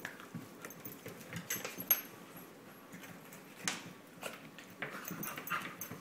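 A dachshund puppy and a larger dog play-wrestling: irregular scuffling and claw clicks on a wooden floor, with one louder burst a little past halfway.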